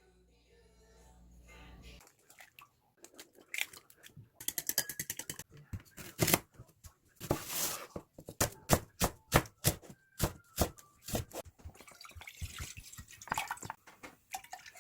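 Kitchen sink work: water dripping and running, with many sharp knocks and clinks of dishes and utensils starting about two seconds in.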